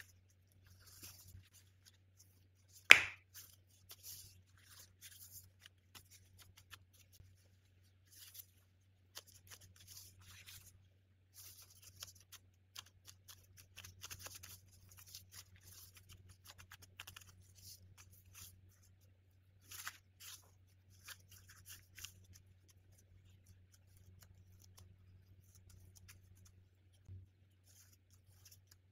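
Disposable plastic gloves crinkling and a rolling pin working pastry dough on a silicone mat, in scattered soft rustles and scrapes, with one sharp knock about three seconds in. A steady low hum runs underneath.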